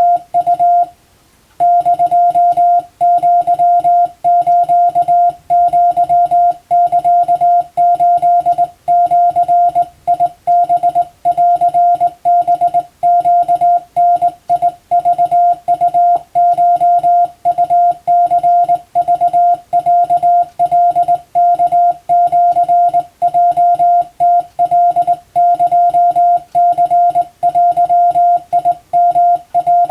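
Morse code (CW) tone hand-keyed in rapid dots and dashes, one steady pitch switched on and off, sending Japanese wabun telegram text for receiving practice. It stops briefly about a second in, then keys on without a break.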